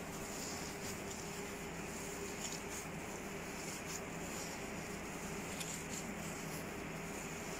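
A steady low hum and hiss of background noise, with a few faint soft crinkles and squishes from a plastic-gloved hand kneading a moist lentil, bottle-gourd and chicken kabab mixture.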